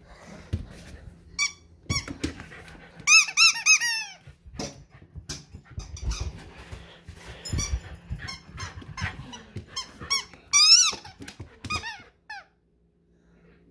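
Squeaky dog toy squeezed in quick runs of short, high, rising-and-falling squeaks as a Labrador retriever puppy plays with it. The longest runs come about three seconds in and again near eleven seconds, with scattered knocks and clicks in between.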